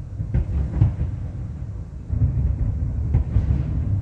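Fireworks bursting: a few sharp bangs over a continuous low rumble that grows louder about two seconds in.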